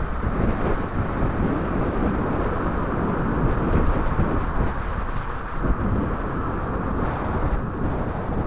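Steady wind rush and road noise on the bike-mounted camera's microphone while an electric bike rides along a street.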